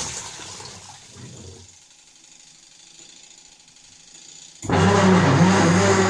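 Semi-automatic washing machine's wash motor and pulsator churning water, winding down and stopping within the first two seconds, then starting again suddenly and loud about four and a half seconds in, with a steady hum and a wavering whine. The machine turns one way and is noisy the other, a fault the owner says needs a new gearbox.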